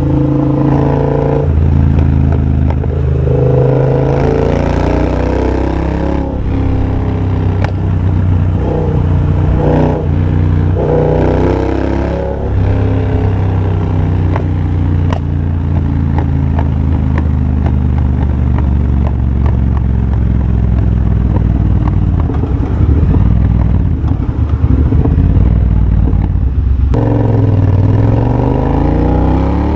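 Triumph Bobber's 1200 cc parallel-twin engine, exhaust running through a de-catted X-pipe and Motone shorty silencers, heard while riding. It rises in pitch several times over the first twelve seconds as it pulls up through the revs, then runs lower and steadier, and picks up again near the end.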